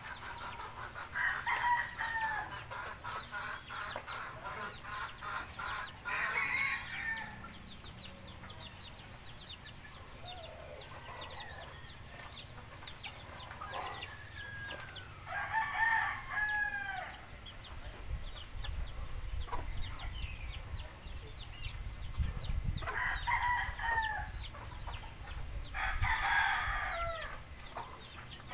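Roosters crowing about five times, spaced several seconds apart, with quieter clucking between the crows.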